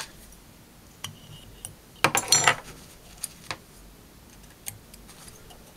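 Small metal fly-tying tools clicking and clinking as they are handled at the vise during a half hitch. The clicks are scattered, with a cluster of louder, briefly ringing metallic clinks about two seconds in.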